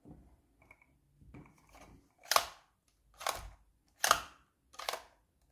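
Four short sharp plastic clicks, about one a second from a little over two seconds in, as the model figure's retractable telescoping eyepiece is slid and worked by hand.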